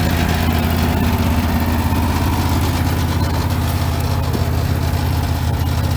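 Wood-Mizer LX150 bandsaw sawmill's engine running steadily.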